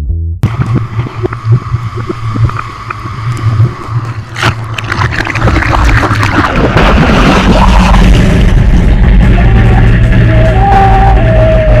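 Rock music cuts off abruptly; then a loud, steady engine rumble with noisy rushing, growing louder about seven seconds in, and a wavering higher tone near the end.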